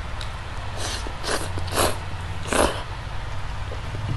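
Someone slurping spicy Korean noodles: four short, hissy slurps over about two seconds.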